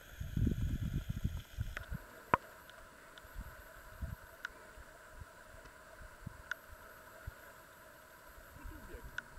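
Wind buffeting the microphone in low gusts for the first two seconds, settling to a low steady rush. A single sharp crack comes about two seconds in, and a few faint ticks follow later.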